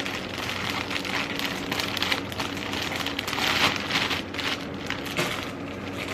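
Plastic poly mailer rustling and crinkling in irregular bursts as a packed wig is pushed into it and pressed flat to squeeze out the air, loudest about three and a half seconds in.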